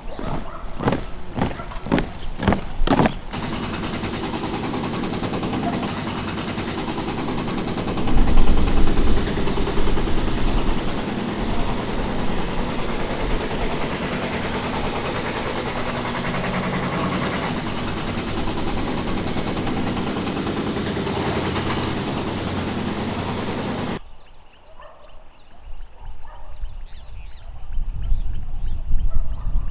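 Rubber boots stepping on wooden boardwalk planks, about two steps a second for the first three seconds. Then steady, loud wind rushing over the microphone, gusting harder with a low rumble about eight seconds in. Near the end it drops to faint with a few light clicks, and the wind rises again.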